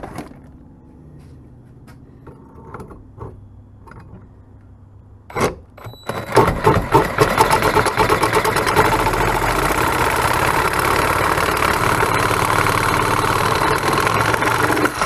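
Cordless reciprocating saw cutting through a steel bolt clamped in a bench vise, running steadily from about six seconds in after a few clicks of the tool being handled and set against the bolt.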